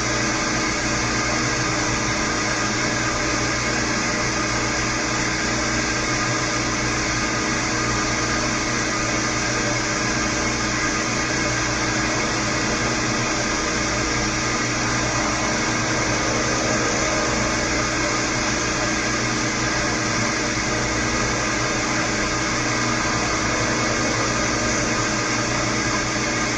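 Milling machine running steadily with many steady tones, a Woodruff key cutter being fed slowly into a shaft to cut a keyseat.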